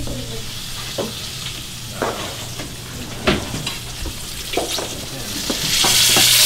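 Bacon sizzling in a frying pan, quieter at first and much louder in the last second, with scattered knocks and clatter from utensils.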